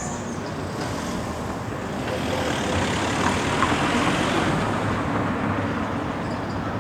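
City street traffic noise, with a vehicle passing close that swells in loudness from about two seconds in and fades again about five seconds in.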